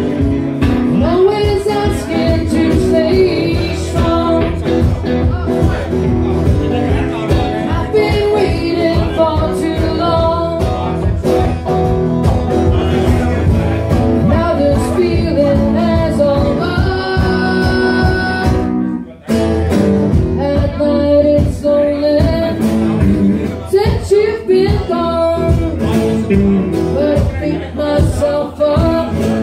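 Live song: a woman singing over her strummed acoustic guitar, with an electric guitar accompanying her. The music breaks off for a moment about two-thirds of the way through, then carries on.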